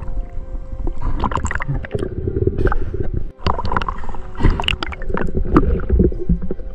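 Water sloshing and gurgling against a camera as it moves through the water's surface and back under, in irregular splashy bursts, with a brief break about three seconds in.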